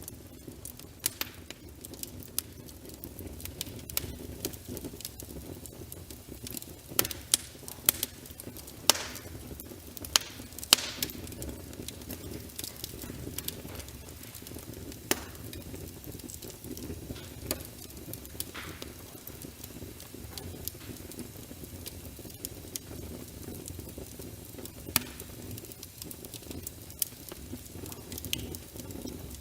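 Wood fire crackling, with sharp pops scattered throughout and a steady low rumble of flames. The pops come thickest about a quarter to a third of the way in.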